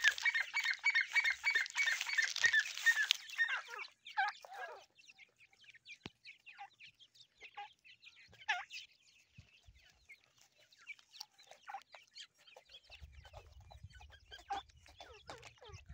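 Teetar (partridge) chicks calling while they forage: a quick run of repeated calls at about four a second for the first three seconds, then scattered short peeps and chirps.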